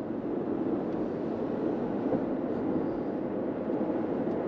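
Steady road and engine noise inside a moving car, its tyres rolling on wet asphalt.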